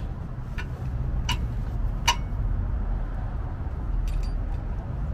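A few separate light metallic clinks from a tow truck's wheel-lift strap and its hook hardware as the strap is wrapped over a car tyre, over a steady low rumble.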